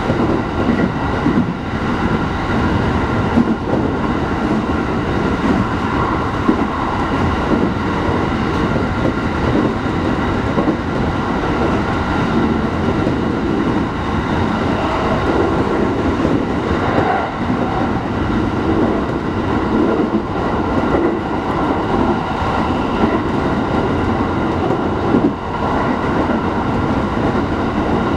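Hachiko Line electric commuter train running between stations, heard from inside the carriage: a steady rumble of wheels on the rails.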